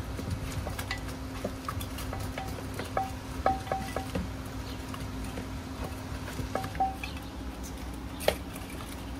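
Kitchen utensils clinking against dishes and bowls: a series of small ringing clinks and taps, with one sharper knock about eight seconds in, over a steady low hum.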